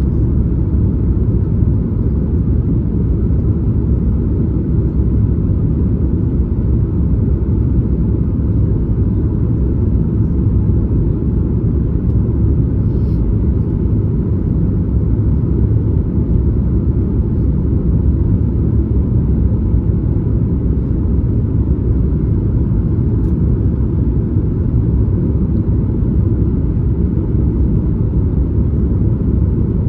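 Steady low rumble inside the cabin of a Boeing 737 MAX 8, heard from a seat just behind the wing, with no change in pitch or level.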